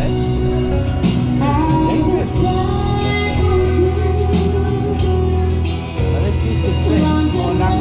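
Live pop music with a singer and a band, loud and steady with a strong bass line.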